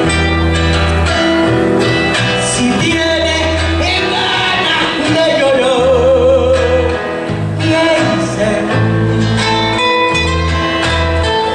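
A song: a woman singing over a band with a steady bass line and guitar. About halfway through she holds a long note with a wavering vibrato.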